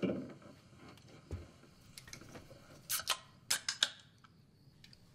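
Quiet room tone with a scattering of short clicks and light taps, most of them bunched about three seconds in.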